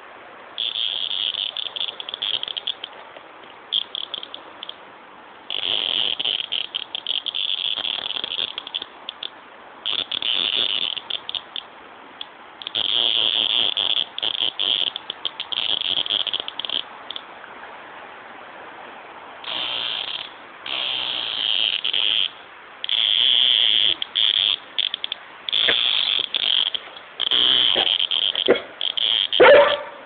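Cicada buzzing in the hand in repeated high, harsh bursts of one to three seconds with irregular gaps, the distress buzz of a cicada being held. A few short, sharp sounds come near the end.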